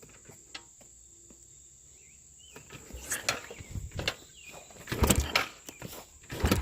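A steady high insect trill, then from about two and a half seconds in a run of irregular thumps and rustles, the loudest about five seconds in.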